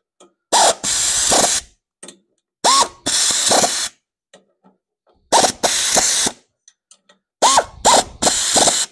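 Ratchet wrench clicking as nuts are tightened down on engine studs: four runs of quick ratcheting about a second each, each starting with a sharp click.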